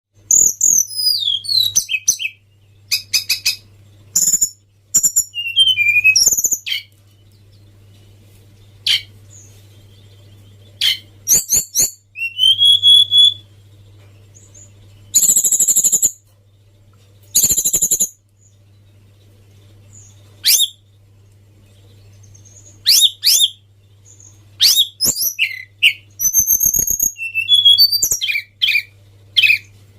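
Tledekan bird singing: short bursts of high whistled notes and rapid trills, some sweeping down in pitch, separated by pauses of a second or more. A steady low hum runs underneath.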